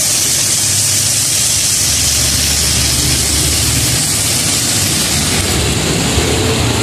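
Pork, tomatoes and shrimp paste frying in a pan over a gas burner: a steady hiss with a low rumble underneath.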